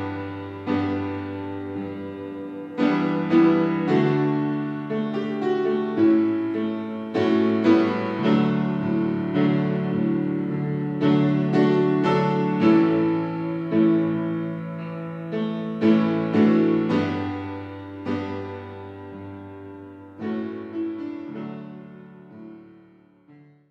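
Solo piano playing slow, sustained chords, each struck and left to ring, fading out near the end.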